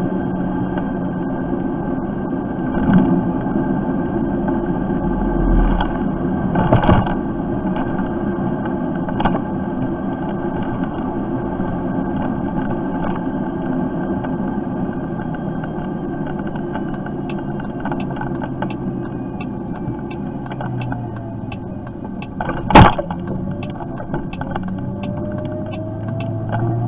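Riding noise of a Lexmoto Impulse (Cineco ES3) electric moped as picked up by its built-in camera: a steady rumble and hum, with scattered small clicks and rattles. A single sharp knock about 23 seconds in is the loudest sound, and a thin whine rises in pitch near the end.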